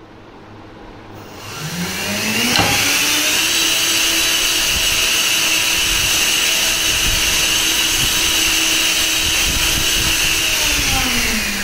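3D-printed 80 mm electric ducted fan driven by a Racerstar BR2207S 2500 Kv brushless motor, run without its diffuser section. It spins up with a rising whine over the first few seconds, holds a steady high whine, then winds down near the end.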